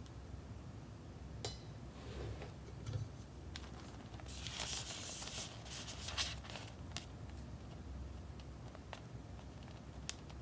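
Thin clear plastic packaging handled by hand: crinkling and crackling, densest from about four to seven seconds in, with a few light clicks and taps before and after.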